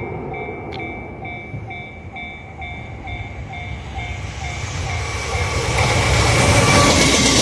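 Railway level-crossing warning bell dinging about three times a second while a JR Freight train hauled by an EF210 electric locomotive approaches, its rumble growing steadily louder over the last few seconds.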